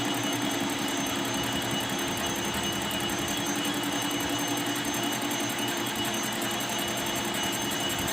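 Workshop machine motor running steadily: a constant hum with a thin high whine over a hiss.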